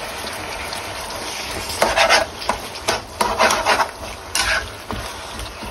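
Sliced sponge gourd and egg sizzling in a stone-coated nonstick frying pan. A utensil stirs and scrapes through them in repeated irregular strokes from about two seconds in.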